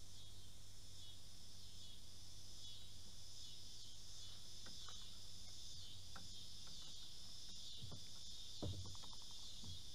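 Steady high-pitched chorus of insects trilling without a break, with a few faint knocks near the end.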